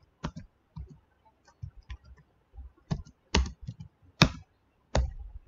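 Typing on a computer keyboard: irregular keystrokes, with a few louder key presses in the second half.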